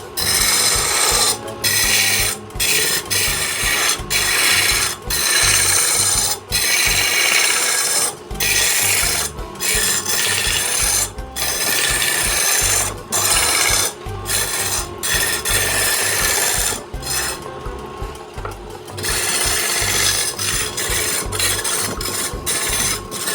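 Woodturning tool cutting into wood spinning on a lathe: a loud scraping hiss, broken by many short pauses as the tool comes off the wood, with a longer break about three-quarters of the way through.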